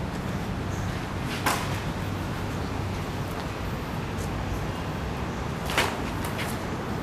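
Two sharp clacks of practice swords striking during sparring, about a second and a half in and again near six seconds, with a few fainter clicks, over steady background noise.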